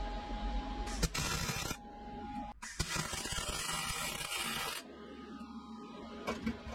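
MIG welder arc crackling on a steel shock absorber tube in two bursts: a short tack about a second in, then a longer weld of about two seconds from about three seconds in.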